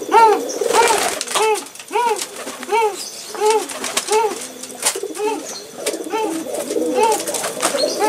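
Domestic pigeons cooing: a steady run of short rising-and-falling coos, about one and a half a second, with brief wing flaps and clicks among them as a courting pair are held together.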